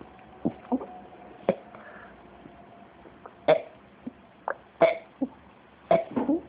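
A little girl burping: a string of short burps, about nine, coming irregularly, with the loudest ones in the second half.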